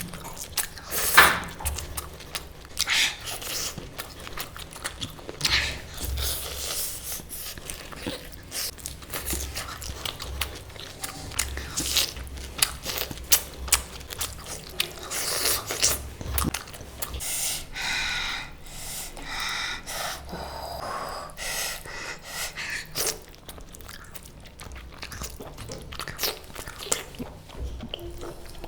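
A person chewing and biting food close to the microphone, with many sharp, irregular clicks and crunches of mouth noise.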